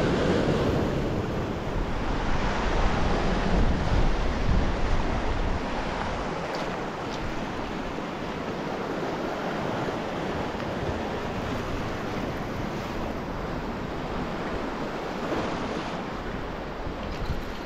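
Waves washing and breaking over rocky shore ledges, with wind on the microphone. The surf is louder for the first few seconds, then settles into a steadier wash.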